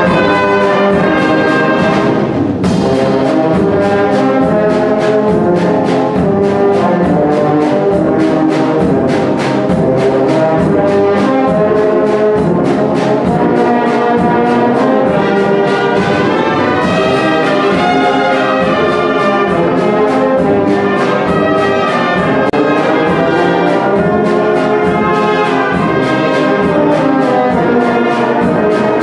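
Brass band of trumpets, trombones, horns and tubas with a drum kit playing a hymn tune, the drums keeping a steady beat.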